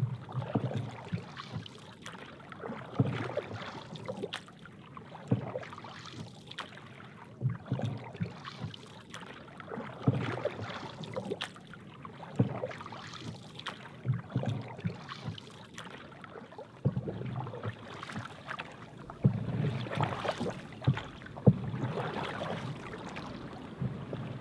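Water splashing and sloshing against the hull of a paddled wooden outrigger canoe, swelling with each paddle stroke about every two seconds.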